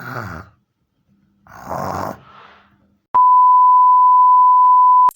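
A person snoring, two long rough snores about two seconds apart. A steady high-pitched beep then sounds for about two seconds, louder than the snores.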